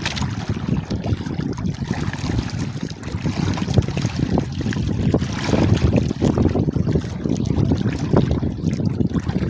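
Wind rumbling and buffeting on the microphone over the wash of choppy sea water around a small boat, uneven and without any engine note.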